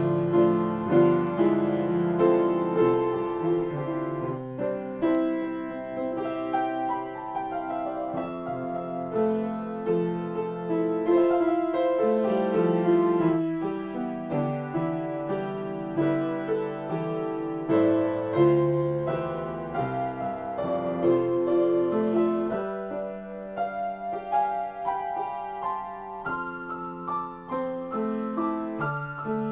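Solo upright piano playing an improvised piece: chords and melody with held, overlapping notes, mostly in the middle register.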